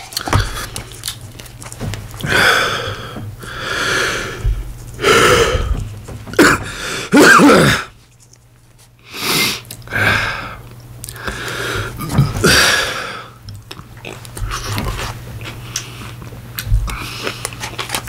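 A man wolfing down ice cream, with a string of loud, breathy huffs and exhalations and mouth noises between mouthfuls. The loudest huff comes about seven seconds in.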